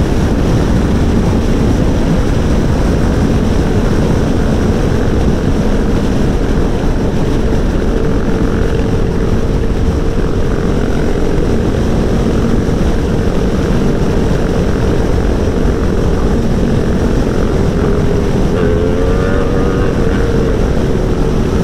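Steady wind rush over the microphone at riding speed, with the Aprilia Tuono V4 1100's V4 engine note running underneath. The engine pitch wavers briefly near the end.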